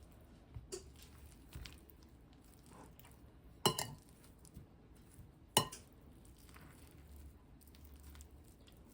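Kitchen utensil clinking against a pot or dish: a few light taps, then two sharp knocks about two seconds apart.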